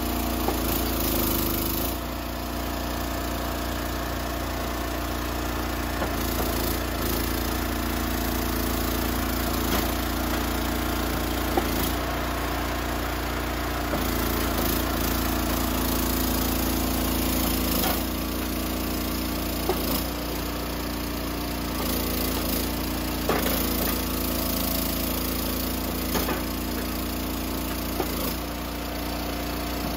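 An engine running steadily, its note shifting every few seconds, with a few short sharp knocks over it.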